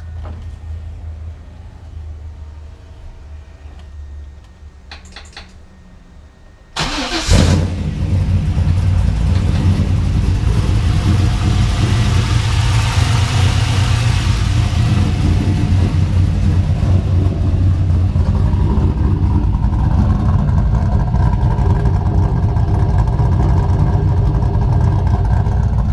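A 1998 F-body's LS1 V8, freshly fitted with an LS6 intake manifold, being started: after about seven seconds of low rumble and a few clicks it cranks briefly, fires with a loud flare, then settles into a steady idle.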